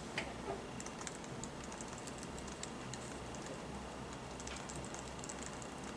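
Light, irregular clicking of typing on a laptop keyboard, over a low steady room hum.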